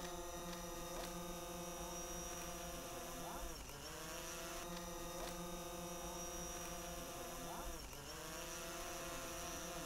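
Quadcopter drone hovering, its propellers giving a steady whine; about a third of the way in and again near the end, the pitch dips sharply and climbs back as the motors slow and speed up again.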